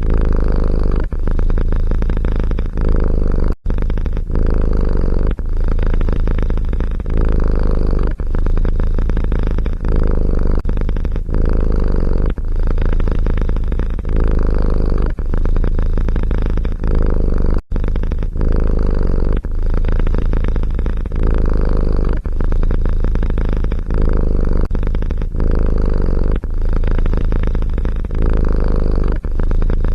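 Domestic cat purring close to the microphone, a loud low rumble that swells and eases in a steady cycle of about one second per breath.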